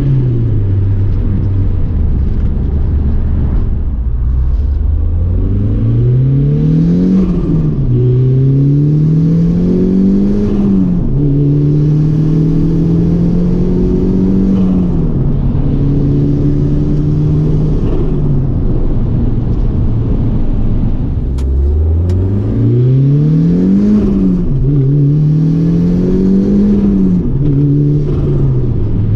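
Turbocharged 20-valve engine of a Booster-repowered Porsche 986 pulling at low boost and part throttle. Its note climbs in pitch several times, drops abruptly at each gear change and holds steady between pulls.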